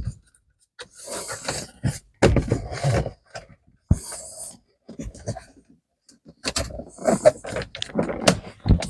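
Hands handling plastic interior trim and a wiring connector: irregular rustling and scraping, several knocks, and a sharp click about four seconds in.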